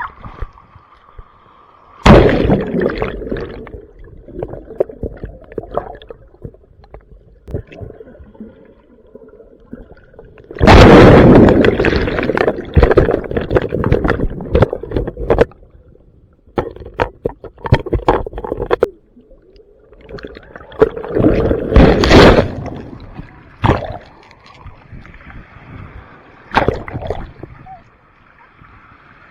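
Ocean surf: waves breaking and washing in, with several loud rushing surges. The longest lasts about five seconds, starting about ten seconds in.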